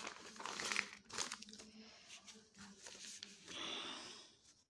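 Paper pages of a notepad rustling and crinkling as they are flipped and handled, in a few soft, uneven bursts, the longest near the end.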